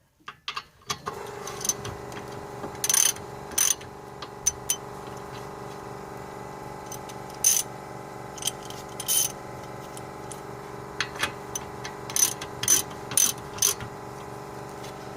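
Metal tool clicks and sharp knocks, irregularly spaced, while a fastener on the rear brake assembly is tightened. Under them runs a steady hum that starts about a second in.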